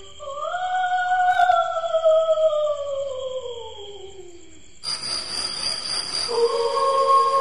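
Dog howling: one long howl that rises briefly, then slides slowly down in pitch for about four seconds. About five seconds in, the sound changes abruptly to a hiss with a steady high whistle, and another held howl-like note starts near the end.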